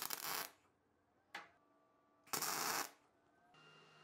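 MIG welder laying short tack welds on steel bolts: a burst of arc noise about half a second long right at the start, a very brief blip a little after a second in, and another half-second burst a little past two seconds.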